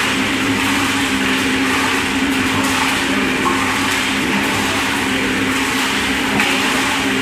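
Portable electric drum concrete mixer running, its motor and turning drum making a steady hum.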